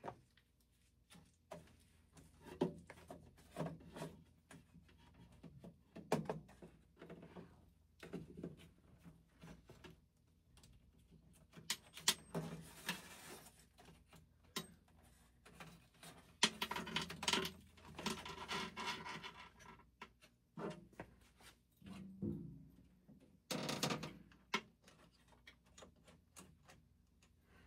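Faint scattered clicks, taps and rustling of hands working on the wiring inside a fire alarm control panel's metal cabinet, with a longer stretch of rustling and scraping a little past the middle.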